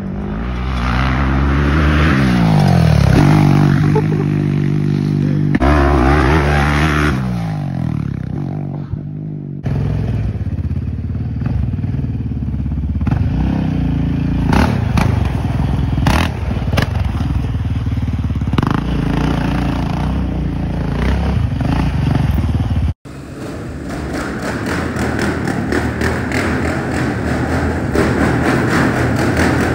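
ATV engines revving up and easing off as quads are ridden, the pitch climbing and falling several times. In the last part a quad engine runs hard inside a large garage while the ATV spins circles on the concrete floor.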